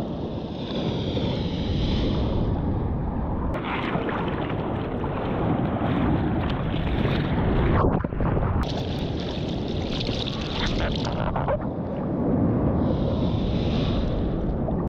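Loud rushing water and wind buffeting a surfer's action camera, with surf and spray noise in the sea. Its character changes abruptly a couple of times, about three and a half seconds in and again near nine seconds.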